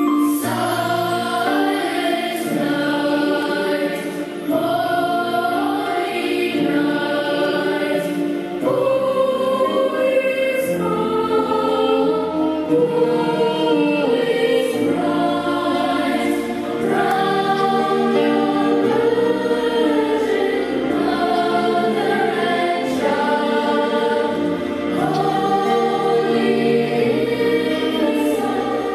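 Choir singing a slow, legato passage, with held chords that move every second or two over a low bass line.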